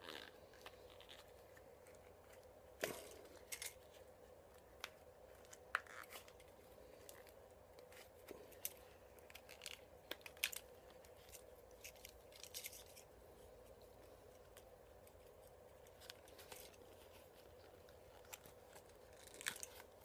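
Faint handling noise: scattered small clicks and rustles as HID headlight wiring and its plastic connectors are worked through a rubber headlight boot, over a faint steady hum.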